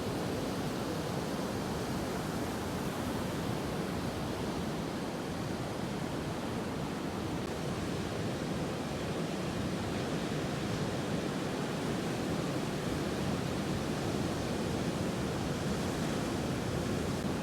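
Ocean surf: a steady, even wash of breaking waves.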